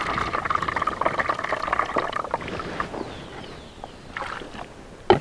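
Water pouring and splashing as thinly sliced onion is washed by hand, busiest in the first two seconds, then lighter sloshing, with one sharp knock just before the end.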